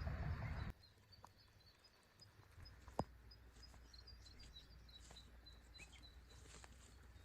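Quiet forest background with a run of faint, short high-pitched chirps from a small bird, repeating irregularly. A louder rushing noise cuts off abruptly under a second in, and a single sharp click sounds about three seconds in.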